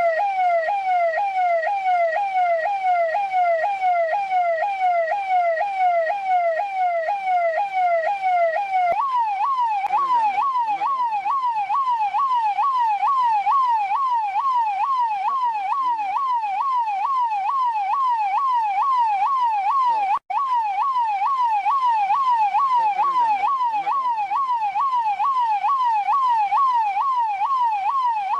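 Russian police car siren sounding continuously in a rapid, repeating up-and-down sweep, a few sweeps a second. About nine seconds in it shifts to a higher pitch and keeps cycling, and it cuts out for an instant about twenty seconds in.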